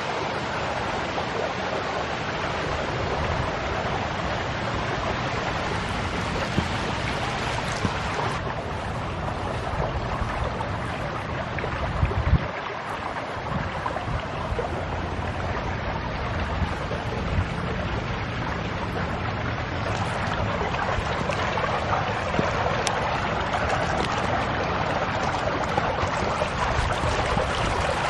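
Steady rushing noise of wind on the microphone, with a few low thumps about midway.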